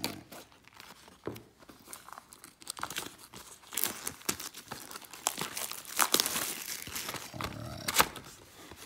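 Plastic shrink-wrap being torn and peeled off a Yu-Gi-Oh! booster box by hand: a steady stream of crinkling and crackling, louder in the second half with a few sharper snaps.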